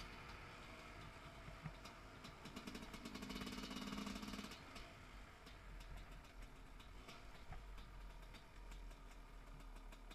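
A 300 cc two-stroke enduro motorcycle engine running at low speed, with many sharp clicks and clatter over it. The engine note swells for about two seconds, from roughly 2.5 s in.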